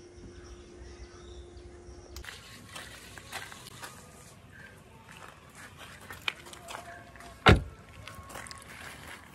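A steady low hum that cuts off about two seconds in, then scattered light clicks and taps, with one loud dull thump about seven and a half seconds in.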